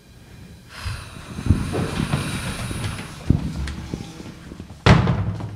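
Sound effect of someone leaving: a rush of wind-like noise with a few low thumps, then a sharp bang about five seconds in, like a door shutting.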